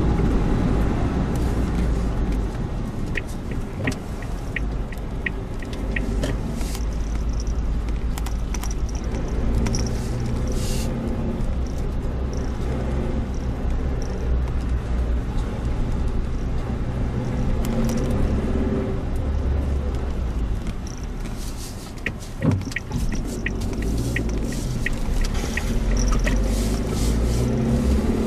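Suzuki Jimny Sierra driving along a road, a steady low engine and road rumble. Twice a run of brisk, evenly spaced ticks comes in for a few seconds, a few seconds in and again near the end, and there is a single sharp knock about two-thirds of the way through.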